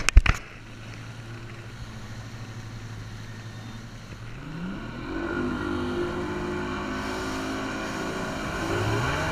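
Mercury OptiMax 150 outboard on a bass boat running under way, a steady engine hum that throttles up with a rising pitch about four seconds in, holds, and rises again near the end. A couple of sharp knocks at the very start.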